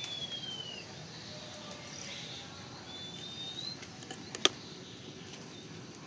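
Two thin bird whistles from the aviary, the first falling in pitch at the start and the second rising about three seconds in. A single sharp click about four and a half seconds in is the loudest sound.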